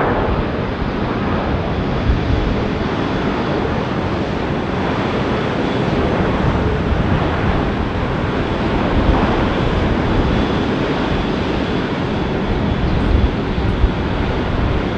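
Steady jet-engine noise of an Airbus A330 airliner landing, with wind buffeting the microphone.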